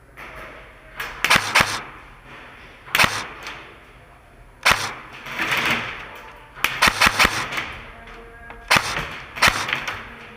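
Airsoft gun firing single shots and quick strings of two to four sharp cracks, a few seconds apart.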